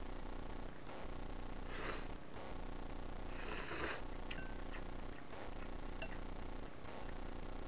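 A person slurping thin ramen noodles in tonkotsu broth with chopsticks: two short slurps, about a second and a half apart, then a couple of light clicks of the chopsticks against the ceramic bowl.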